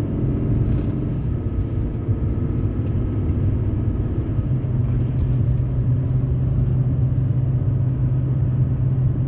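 Engine and road drone of a vehicle on the move, heard from inside the cab: a steady low hum, with the engine note shifting in the first second or two before it settles.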